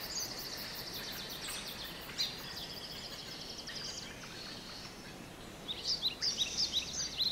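Forest ambience: small birds chirping over a steady hiss. A quick run of repeated high chirps, several a second, starts near the end.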